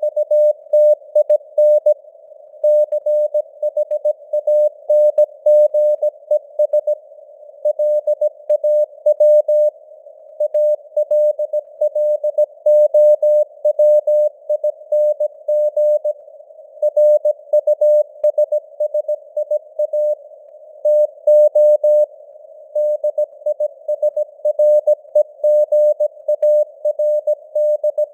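Morse code (CW) at 17 words per minute: a single steady mid-pitched tone keyed on and off in quick dots and dashes, sending news text, with a band of simulated radio hiss around the tone between the elements.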